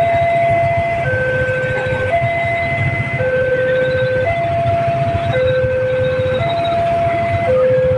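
Railway level-crossing warning alarm sounding an electronic two-tone signal, a higher and a lower tone alternating about once a second: the warning that a train is approaching.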